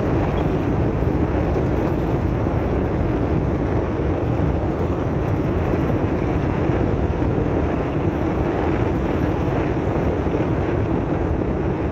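Steady running noise of a vehicle driving along an unpaved dirt road: engine and tyres rolling on the loose, graded surface.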